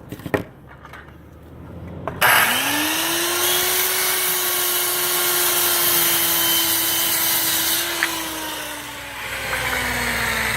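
A circular saw switches on about two seconds in after a few light clicks, then runs loud and steady at full speed. Its pitch sags near the end.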